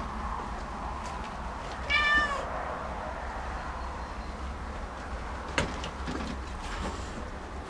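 A domestic cat meows once, about two seconds in: a single short call with a slight rise and fall in pitch. A sharp click follows about five and a half seconds in.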